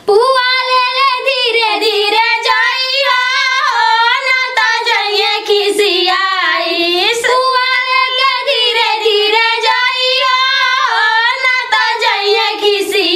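A woman singing a folk song in a high, strained voice. The melody bends and wavers, with little or no accompaniment under it.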